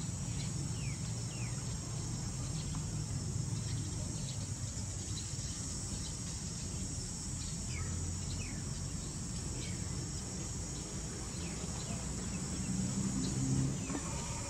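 Steady high-pitched insect chorus droning without a break, with scattered short, falling bird chirps and a low rumble underneath.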